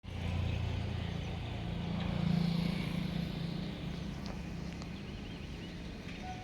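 Passenger train running past, a low engine drone with a rushing noise on top that is loudest about two seconds in and then slowly fades.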